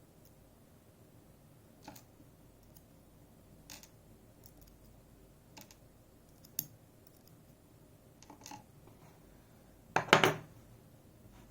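Light metallic clicks and taps, a few seconds apart, from small parts of a Robur safe deposit lock being handled as the lock is taken apart, with a louder clatter about ten seconds in.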